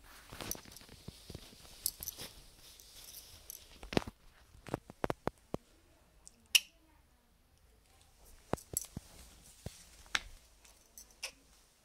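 Scattered light clicks, taps and rustling of kittens scampering and scuffling on a hard tiled floor. The sounds come unevenly, and one sharper click a little past the middle is the loudest.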